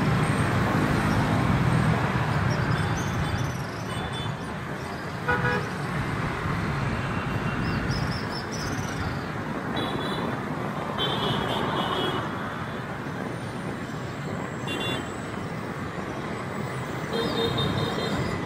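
Busy city street traffic: car, motorbike and bus engines running steadily as vehicles pass, with short horn toots several times, clustered around the middle and again near the end.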